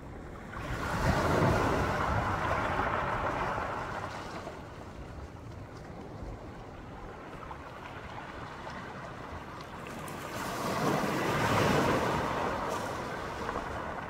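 Sea waves breaking on a beach: one wave surges in about a second in and slowly washes back, then a second wave breaks about ten seconds in.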